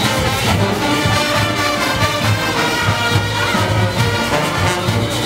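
Junkanoo band playing: brass horns sounding a tune over steady, pulsing drumming and percussion.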